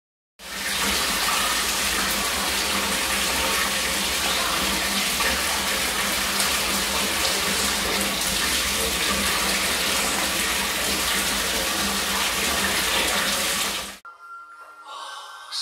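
Water from a handheld shower head pouring into a bathtub as it fills, a steady rush. It starts about half a second in and cuts off suddenly near the end.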